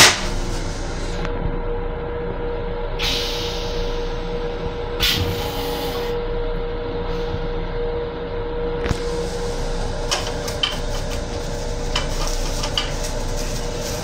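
Metro-North M7 electric railcar noise heard inside its restroom: a steady rumble with a steady mid-pitched tone for most of the time, short hisses about three and five seconds in, and small rattles and clicks near the end, after a sharp click at the start.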